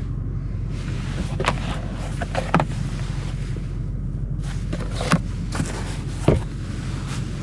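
BMW 750i's 4.4-litre twin-turbo V8 running at a steady low idle, with about five sharp knocks and clicks over it.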